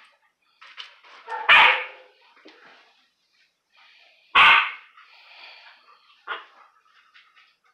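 Two dogs at play, a Belgian Malinois puppy pawing up at a larger dog: two loud barks about three seconds apart, with fainter short sounds in between.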